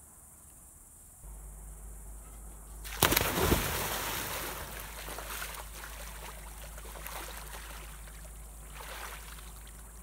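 A person jumps into an inflatable above-ground pool about three seconds in: a sudden loud splash, then water sloshing and lapping that slowly dies away.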